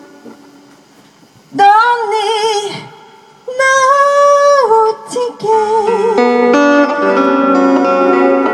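Live song with guitar accompaniment: after a chord dies away, a singer holds two long notes with vibrato, and about halfway through the voice carries on over fuller guitar and sustained instrument chords.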